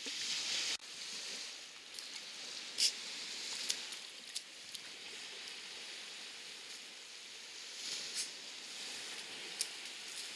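Steady hiss of water washing at the shoreline, with a few short rustles or clicks over it.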